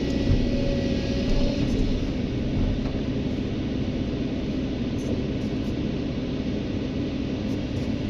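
Heavy diesel engine of construction machinery running steadily, a low rumble with a faint steady whine above it.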